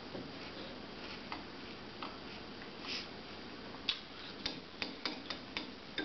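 Metal spoon clinking against a ceramic cereal bowl, a quick run of about seven sharp clinks over the last two seconds.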